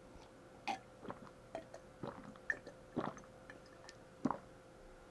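Steak crackling faintly on a hot cast-iron sizzling plate: scattered small pops, about a dozen over five seconds, the loudest a little under a second in, around two and a half to three seconds, and just after four seconds. A steady faint hum runs beneath.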